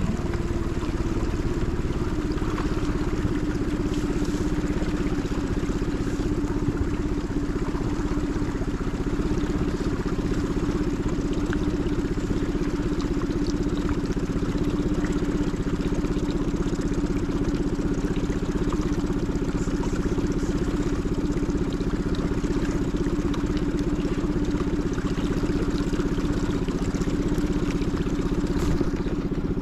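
Small Tohatsu outboard motor running steadily at low trolling speed, its note holding even throughout.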